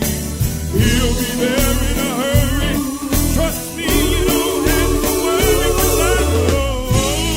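Gospel song: several voices singing with vibrato over a band with bass and drums.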